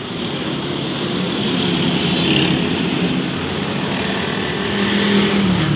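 Road traffic going by close at hand: vehicle engines hum past, building in level, and one engine's note drops in pitch near the end as it passes.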